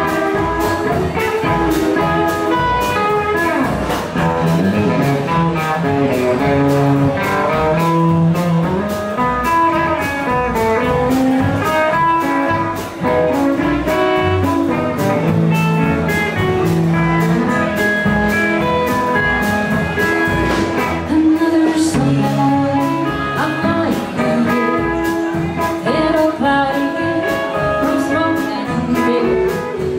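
Live blues band playing: electric and acoustic guitars, upright bass and drums, with singing.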